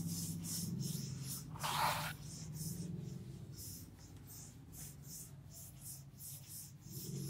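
Blackboard duster wiping chalk off a chalkboard in quick back-and-forth strokes: a dry, hissing rub about two or three times a second, over a low steady hum. One short, louder noise comes about two seconds in.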